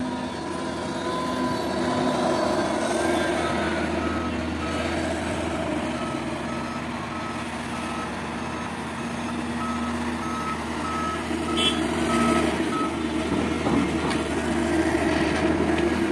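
Cat 330 GC excavator's diesel engine and hydraulics running steadily under load while digging and loading a dump truck. A back-up alarm beeps at about two beeps a second, starting a few seconds in and stopping before the end. Near the end the machine gets louder as a bucket of earth is dumped into the truck's bed.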